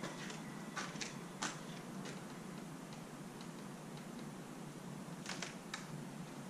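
A few faint, sharp clicks at uneven intervals, clustered about a second in and again near the end, over a steady low hiss.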